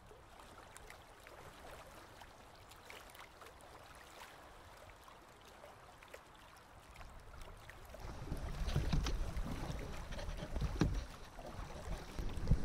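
Canoe drifting on calm water: faint lapping against the hull with small clicks. From about eight seconds in, a low wind rumble on the microphone and a few knocks against the canoe.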